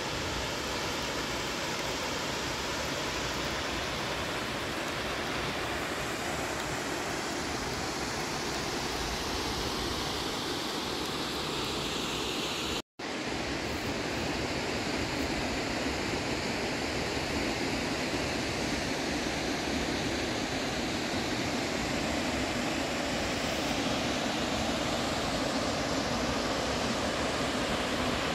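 Steady rush of running water from a mountain stream or waterfall, broken once by a moment of silence about halfway through, after which the rush is slightly fuller.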